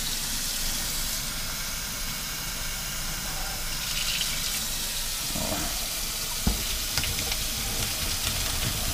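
Kitchen tap running cold water hard into the sink, getting stronger about a second in, with a single knock about six and a half seconds in.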